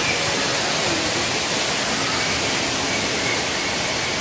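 Steady rushing hiss that holds an even level throughout.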